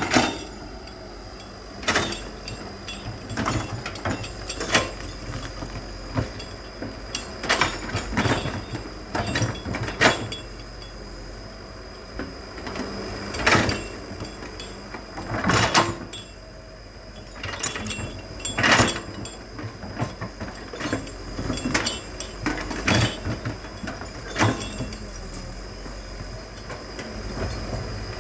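Excavator running with a steady low rumble and a thin high whine, broken by many irregular sharp knocks and cracks as it works.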